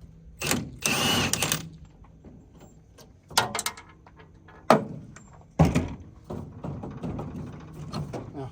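A series of separate knocks and clunks, with a longer scraping sound about a second in and another toward the end.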